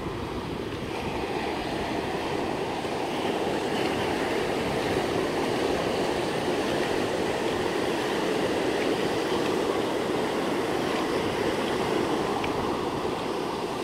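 Sea surf breaking and washing up a sandy beach: a steady rushing noise.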